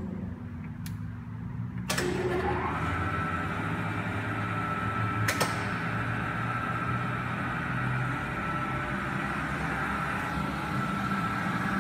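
Kingston HD-22160 gear-head engine lathe's spindle drive starting with a click about two seconds in, its gear whine rising quickly and then holding steady as the chuck turns at low speed, around 20 RPM. A second sharp click comes a few seconds later over a low steady hum.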